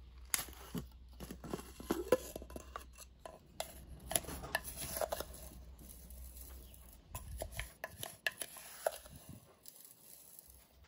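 A wooden spoon stirring and scraping ground lentil powder in a clear jar, with irregular light clicks and scrapes against the jar.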